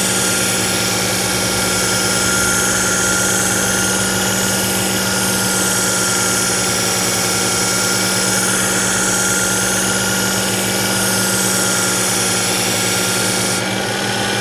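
Work Sharp electric belt knife sharpener running steadily, with a kitchen knife edge being ground on its fine X4 abrasive belt. The motor's hum slides down at the very end as it is switched off and spins down.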